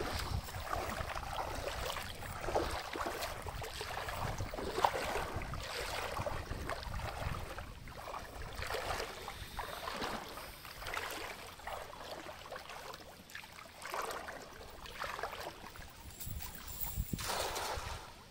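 Water sloshing and splashing around a person's legs as he wades in a shallow river. Near the end comes the splash of a cast net and its weighted rim landing on the water.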